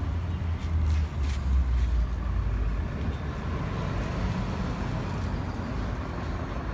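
Motor vehicle and street traffic noise, with a deep engine rumble over the first two seconds that then eases into a steady traffic hum.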